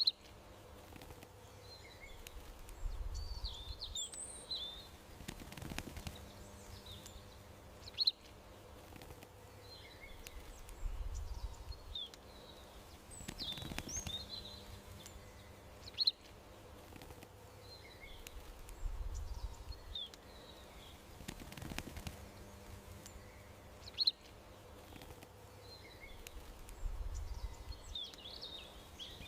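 Small birds chirping in short high calls over a faint outdoor background. A sharp click and a low rumble come back about every eight seconds, with the same short stretch of sound repeating.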